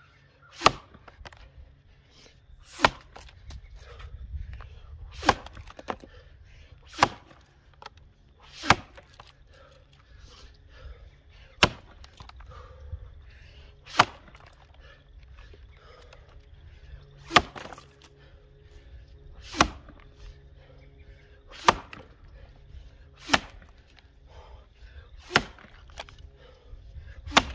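Axe chopping into a 19-inch white pine log: twelve sharp, single blows, roughly one every two seconds.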